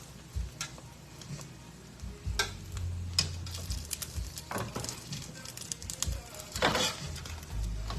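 Pancake batter frying in coconut oil in a pan with a steady light sizzle. A few sharp clicks and scrapes of a utensil against the pan come about half a second, two and a half, four and a half and nearly seven seconds in.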